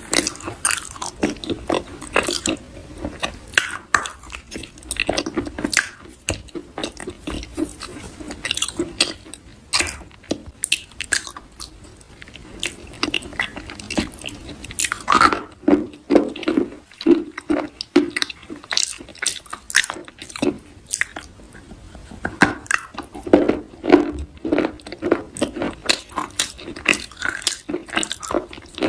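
A person biting and chewing soft crunchy food: a continuous run of irregular crunches and chewing sounds.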